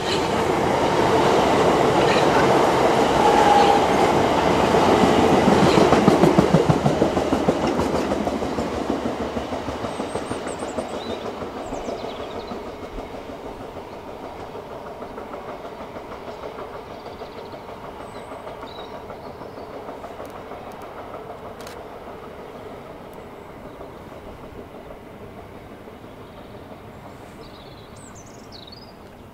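LNER A4 Pacific steam locomotive 60007 and its excursion train passing at speed, the carriage wheels clattering rhythmically over the rail joints. It is loudest about six seconds in, then fades steadily as the train draws away.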